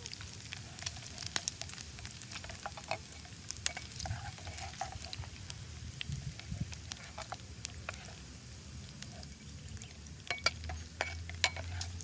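Pork pieces sizzling in oil in a frying pan, with scattered sharp clicks of a metal spatula and tongs against the pan as the fried pieces are turned and lifted out.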